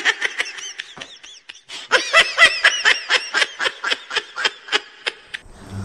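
A man laughing gleefully in a long run of quick ha-ha bursts, about three or four a second, with a short break about a second in.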